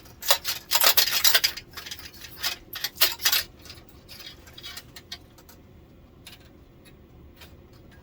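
Clip-in LED backlight strips being pried out of an LCD TV's back panel: a quick run of plastic clicks and scraping in the first few seconds, then only a few faint clicks.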